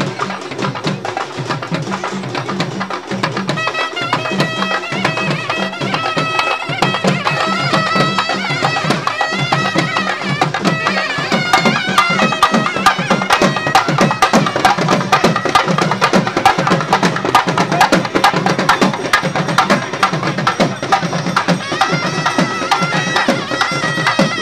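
Traditional Tamil festival music: fast, driving drumming, joined about four seconds in by a high melody line with bending notes.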